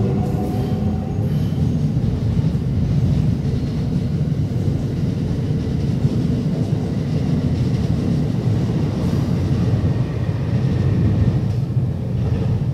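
Amtrak passenger train hauled by an AEM-7 electric locomotive passing close at speed: a steady rumble of wheels on rail as the cars go by, dropping off near the end as the train leaves.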